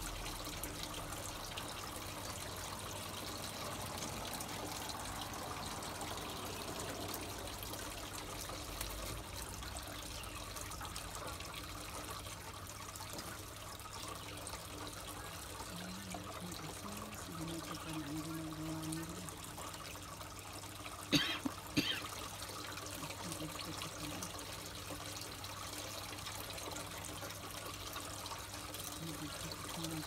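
Water trickling steadily, with two sharp clicks a little over two-thirds of the way through.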